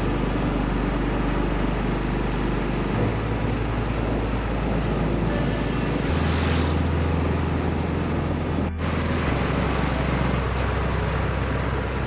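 Steady road and wind noise from a moving vehicle, under a music bed of low bass notes that change every three seconds or so. A brief passing whoosh comes about six seconds in, and the sound cuts out for a split second near nine seconds.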